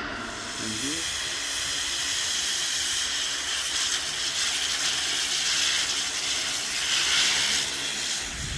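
De Havilland Beaver floatplane's engine and propeller running as it taxis on the water: a steady, mostly high hiss over a low engine drone, with a brief rise in pitch about a second in.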